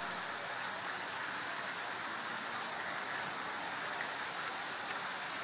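Fountain water splashing: a steady, even rush of falling water.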